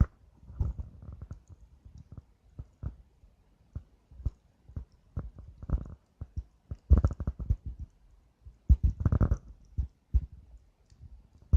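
Wood campfire crackling and popping: irregular sharp snaps, with a couple of louder, longer bursts of crackle about seven and nine seconds in.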